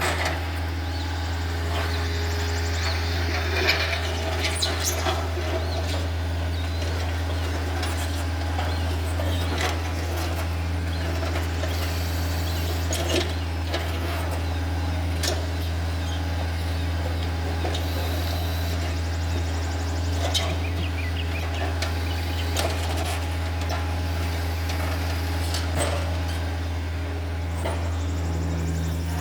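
Takeuchi TB153 compact excavator's diesel engine running steadily, a low hum with a few scattered knocks and clanks.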